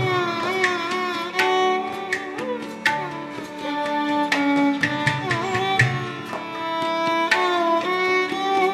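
Instrumental Indian–West African string fusion: a violin plays a sliding, ornamented melody over tabla, with plucked string notes struck now and then.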